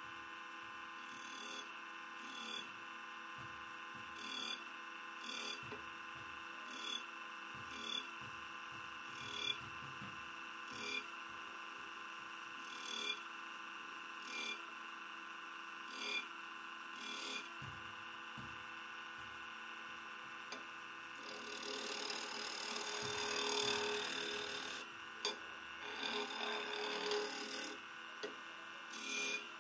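Wood lathe running with a steady motor hum while a chisel cuts grooves into the spinning wooden cylinder: short cutting strokes about every second and a half, then a longer stretch of scraping cuts about two-thirds of the way through.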